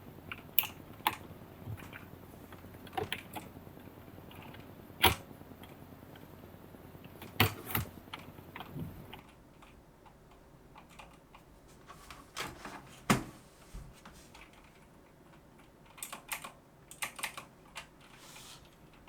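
Irregular sharp plastic clicks and taps from a mechanical keyboard as a keycap is pulled off and a silicone cat-paw keycap is pressed onto the T key's switch. The clicks come in scattered groups, with a few louder snaps.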